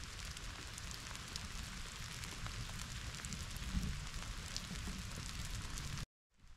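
Steady rain: a constant hiss scattered with many small taps of drops landing, over a low rumble. The sound cuts out abruptly about six seconds in and returns quieter.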